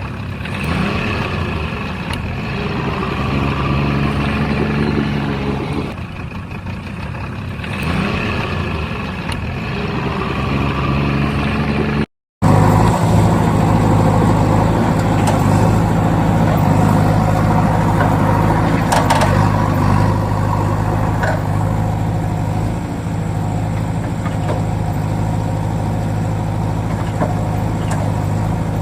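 Truck engine running, its pitch rising and falling as it revs. After an abrupt cut about twelve seconds in, an engine runs at a steady, heavier pitch, with a few faint clicks.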